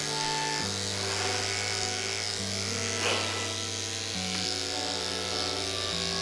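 Background music with a bass line that changes note every second or two, over the steady buzz of electric pet clippers shaving a cat's coat.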